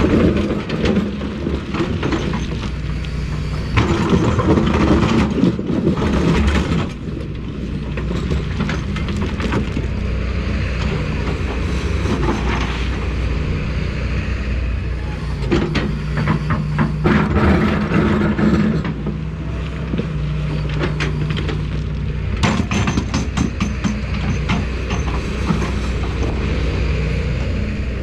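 Excavator's diesel engine running under working load, its pitch shifting as it works, with intermittent knocks and clanks.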